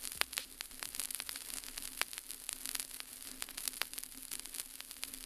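Vinyl record surface noise in a silent stretch of groove between tracks: irregular clicks and pops over a faint hiss, with a steady low hum underneath.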